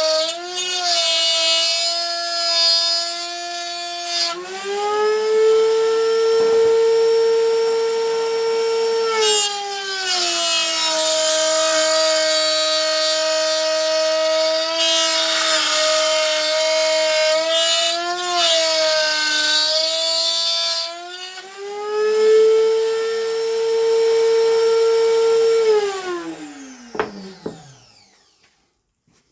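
Router motor in a router table running at high speed while cutting slots in wooden picture-frame stock. Its whine shifts in pitch several times as the cut loads it. About 26 seconds in it is switched off, and the whine falls steadily as the bit spins down.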